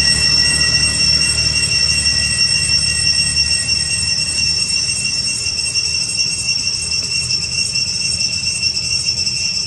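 Cicadas droning steadily, several unbroken high-pitched tones held at once, over a low rumble.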